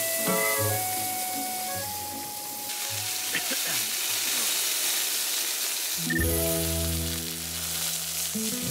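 Pork slices sizzling as they fry in a skillet, with background music that settles into a low held chord about six seconds in.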